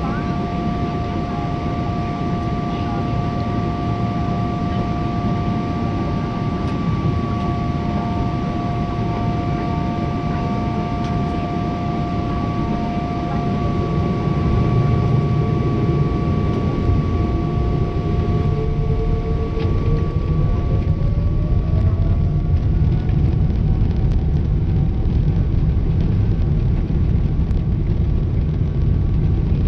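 Boeing 777-200 jet engines heard from inside the cabin over the wing: a steady rumble with two steady whine tones at first. Then the noise grows louder and a whine rises in pitch about two-thirds of the way in, as the engines spool up to takeoff thrust and the takeoff roll begins.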